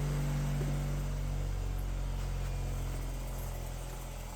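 A bench grinder's electric motor humming steadily, with a few low, even tones, getting quieter over the last second or so.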